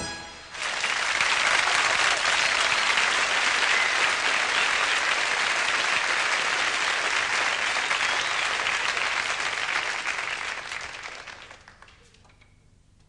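Concert audience applauding, rising about half a second in, holding steady, then fading away near the end.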